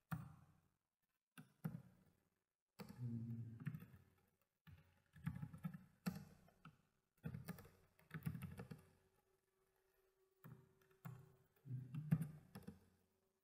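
Computer keyboard typing: quick runs of keystrokes in short bursts with brief pauses between them.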